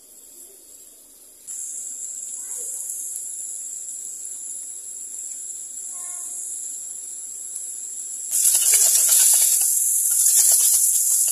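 Minced pork sizzling in a hot stainless steel pot: a steady hiss that turns louder and crackly about eight seconds in, as a metal spoon breaks up and stirs the meat.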